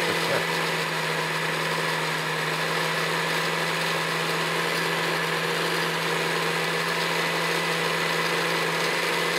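Countertop blender running steadily, its motor humming as the blades blend blueberries and yogurt into a smoothie.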